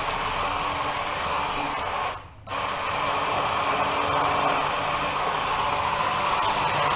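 Electric hand blender running in a tall plastic beaker, blending a green liquid mixture. It cuts out for a moment about two seconds in, then runs again steadily.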